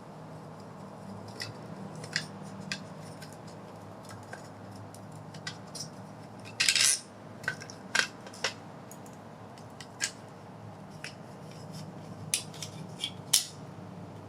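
Small metal parts handled by hand: scattered sharp clicks and clinks of screws and doorbell mounting hardware, with one longer rattle about seven seconds in, over a faint low hum.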